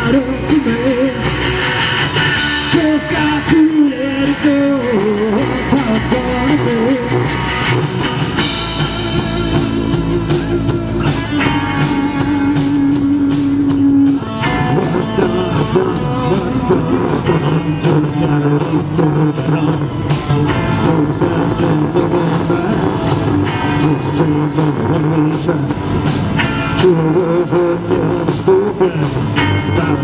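Live rock band playing: electric guitars, bass guitar and drum kit, with a lead melody that bends and wavers in pitch and holds one long note about halfway through.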